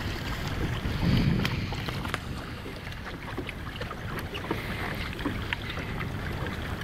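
Wind buffeting the microphone with a low rumble, strongest about a second in, over water lapping against a small boat's hull, with scattered light clicks and taps.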